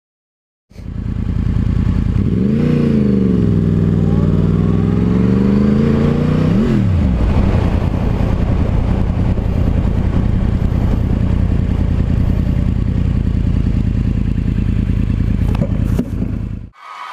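Sportbike engine accelerating hard, its pitch rising, dipping and rising again before dropping sharply about seven seconds in, then running on steadily at speed. The sound begins after a moment of silence and cuts off suddenly near the end.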